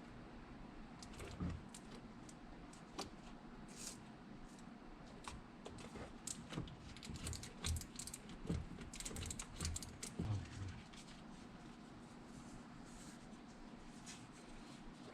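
Irregular light clicks and taps of hand work on tools and materials, with a few soft thumps, thickest around the middle and thinning out near the end.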